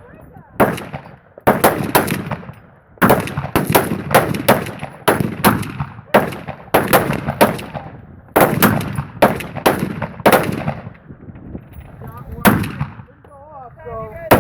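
Gunfire on an outdoor shooting range: irregular shots, some in quick strings and some overlapping, each followed by a trailing echo.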